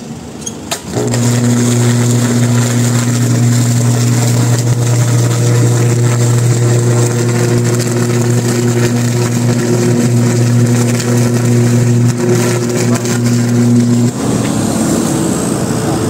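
High-voltage power-line arc at a pole-top fuse cutout worked with a hot stick: a couple of sharp cracks, then a loud, steady electrical buzz with a deep hum that holds for about thirteen seconds and cuts off abruptly.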